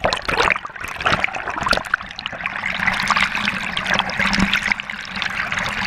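Water splashing and gurgling over a GoPro in its waterproof case as it is dunked under the surface and pulled back through it. The first two seconds bring a run of sharp splashes, then a steadier rushing, bubbling wash.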